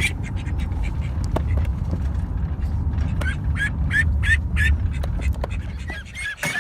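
Call ducklings peeping, a quick run of short high peeps a few seconds in, with scattered duck calls around them. A steady low rumble underneath drops away near the end.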